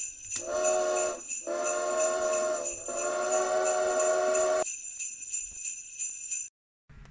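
Sleigh bells jingling steadily, with three long blasts of a chime train whistle over the first few seconds. The bells stop suddenly near the end.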